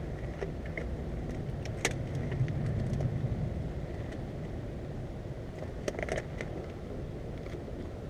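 A steady low rumble throughout, with a few light clicks and knocks from small objects being handled and set down, the clearest about two seconds in and again about six seconds in.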